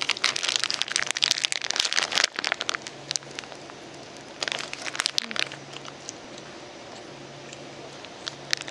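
Plastic wrapper of a packaged convenience-store hamburger crinkling as it is peeled open, dense for the first few seconds. A shorter burst of crinkling follows about halfway through, then a few scattered crackles.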